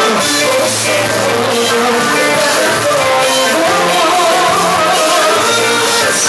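Loud live performance of a Greek popular (laiko) song: a band with plucked strings and a singing voice carrying a wavering melody.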